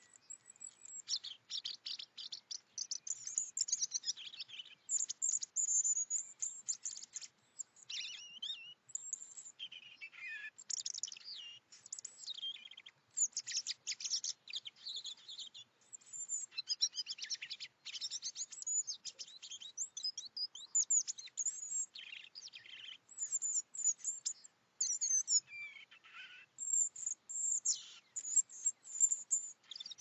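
European robin singing: a long run of high, thin warbling and trilling phrases, each a second or two long, separated by short pauses.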